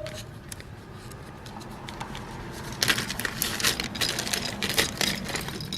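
Hands handling a new refrigerator thermostat and its capillary tube: scattered light clicks and rustles, busiest in the second half, over a low steady hum.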